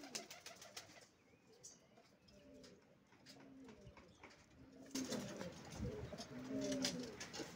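Domestic pigeons cooing: a string of short, low coos repeated about every half second, growing louder about five seconds in, with scattered faint clicks.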